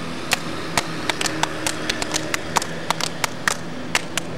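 Sparse, uneven clapping from a small audience, a few people applauding, over a steady low hum.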